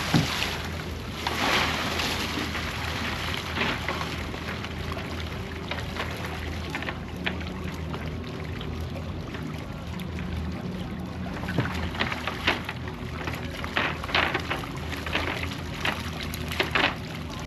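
A cast net is thrown for baitfish with a splash, then hauled back aboard dripping water. Near the end the net's lead weights rattle on the deck and the baitfish flip about as it is emptied, all over a low steady hum.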